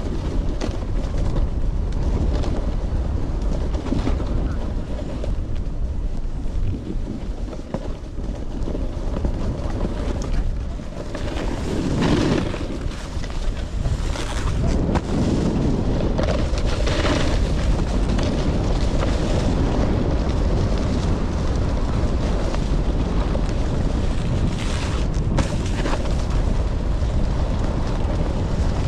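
Wind rushing over the microphone of a point-of-view camera while snowboarding downhill, a steady low rumble throughout. The snowboard scraping over the snow rises to a louder hiss in a few surges, about twelve seconds in and again from about fifteen to seventeen seconds.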